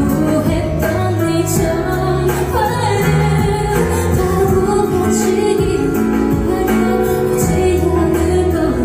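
A female vocalist singing live into a handheld microphone over band accompaniment, holding a long note in the middle of the phrase.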